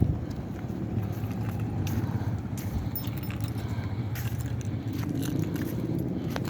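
1981 Toyota Corolla DX's carburetted four-cylinder engine running at a steady idle, with a few light clicks over it.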